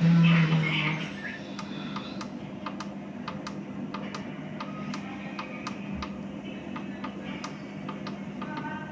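Electrofusion welding machine giving a loud low buzz for about a second as the weld cycle is started, then a steady low hum with scattered, irregular clicks while the weld timer runs.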